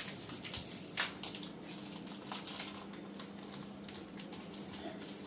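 Scattered light clicks and taps of small objects being handled, with a sharper knock about a second in, over a steady low hum.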